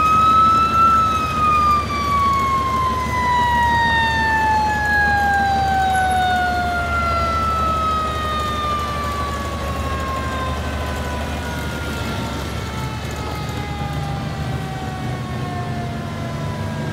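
Fire engine's mechanical siren, winding up to its peak in the first second and then coasting down in one long, slowly falling wail. A heavy engine rumbles underneath and grows louder near the end as the truck draws closer.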